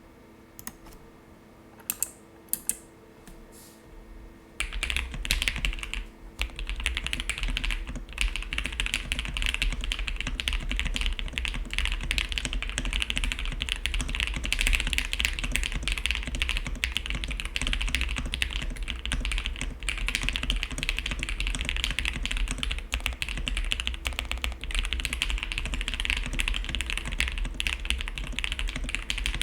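Typing on a custom mechanical keyboard, an OwLab Jelly Epoch with lubed Queen switches, a polycarbonate plate, gasket mount, PE and plate foam, and GMK keycaps. A few separate keystrokes come first, then steady fast typing from about four and a half seconds in.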